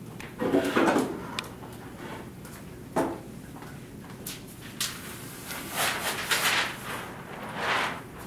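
Scattered scrapes, rustles and knocks of a classroom in use: a few short scraping smears, the longest about six seconds in, with small clicks between them.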